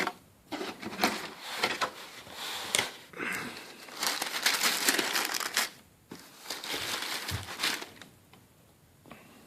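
Paper packaging crinkling and rustling in irregular bursts as a new pair of sneakers is unboxed, settling to quiet near the end.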